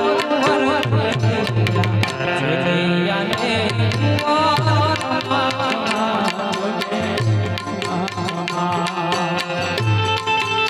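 Instrumental interlude of a Gujarati folk song (a halardu, or lullaby): tabla strokes, with deep bass-drum notes recurring, under a wavering melody line and held notes.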